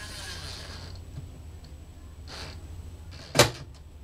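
Cordless drill-driver running as it snugs a microwave mounting screw, its clutch ratcheting with light torque, then stopping about a second in. A short, loud burst of noise follows about three and a half seconds in.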